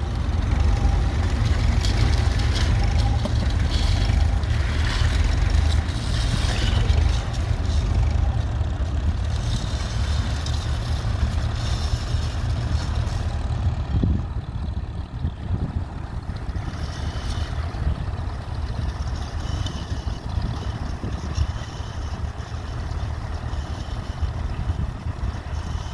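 Ferguson TEF20's four-cylinder diesel engine running steadily as it pulls a plough, with wind rumbling on the microphone. Louder in the first half, somewhat quieter from about halfway through.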